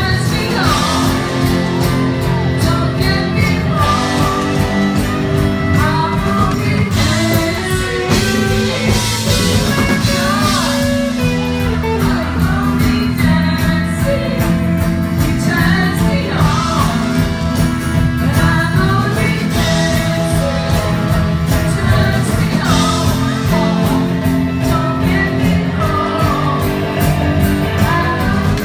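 Live rock band playing a glam rock song, with electric guitars, drum kit and singing over a steady, full band sound.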